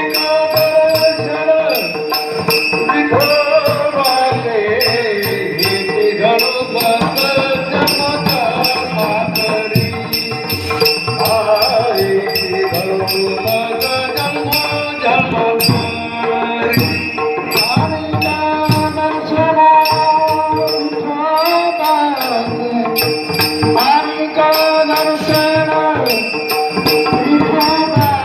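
Warkari kirtan music: a melody that bends up and down over steady held tones, with a regular jingling beat of small hand cymbals and a drum.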